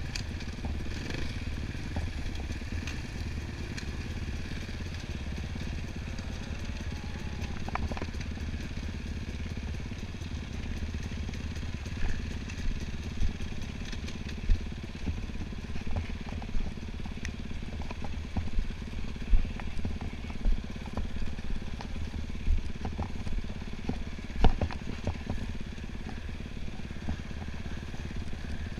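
Enduro motorcycle engine running steadily, with sharp knocks and clatter that come more often in the second half; the loudest knock is about 24 seconds in.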